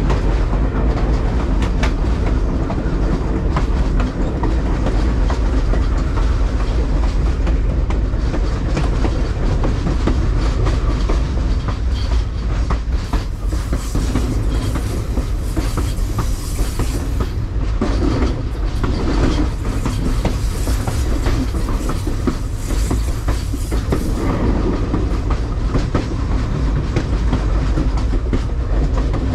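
Passenger train rolling along the track, heard from the back of the train: a steady low rumble with wheels clicking over rail joints. A brighter hiss rises over it for a stretch in the middle.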